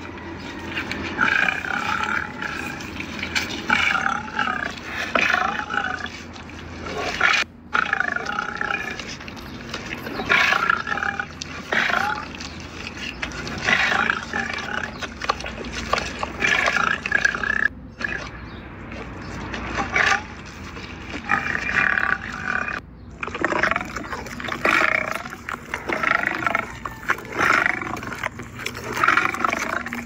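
A lion growling and roaring in rough bursts, one after another. The sound drops out abruptly three times.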